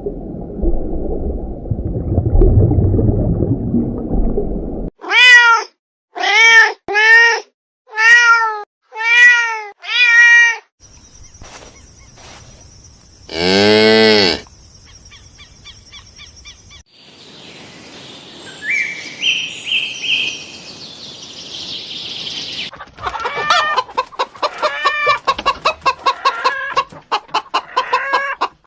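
A run of separate animal calls: after a low rumbling noise, five short cat meows about a second apart, then one longer call and, near the end, a quick string of rapid pulsed calls.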